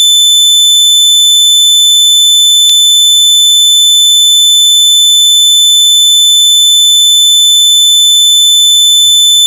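Loud electronic alarm tone: one continuous high-pitched beep held steady without a break, like a piezo smoke-alarm buzzer.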